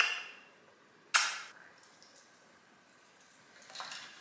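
Two sharp kissing smacks about a second apart as a woman kisses her blue-and-gold macaw's beak. Near the end, faint rustling and light clinks of a bird harness being handled.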